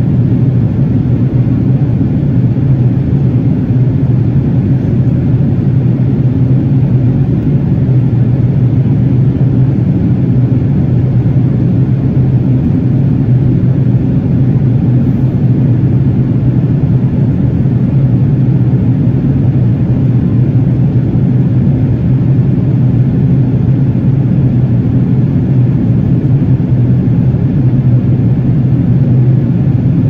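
Steady drone of a jet airliner in flight heard from inside the cabin: engine and airflow noise, low and unchanging.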